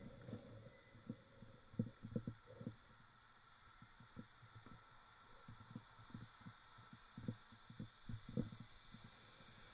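Muffled, irregular low thumps and knocks, a few a second, from a mountain bike jolting over rough ground, picked up through an action camera, over a faint steady hum.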